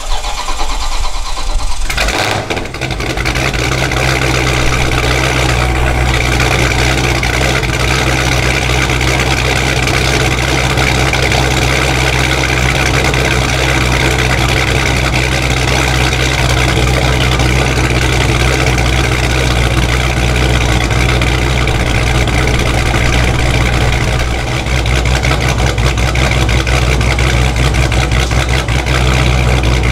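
Dodge Charger Scat Pack's Procharger-supercharged 392 Hemi V8 just after start-up. The start-up flare dies down about two seconds in, and the engine settles into a steady idle.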